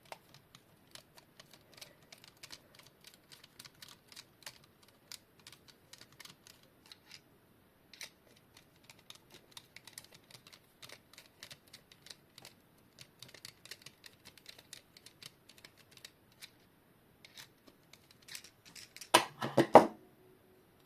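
Small screwdriver working the tiny screws out of the back of a plastic quartz alarm clock, making many faint, irregular clicks and scrapes. A louder clatter near the end.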